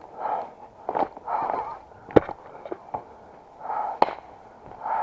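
Running footsteps crunching over leaf litter and twigs, heard from a camera worn by the runner, with gear jostling. Several sharp knocks stand out, the loudest about two seconds in.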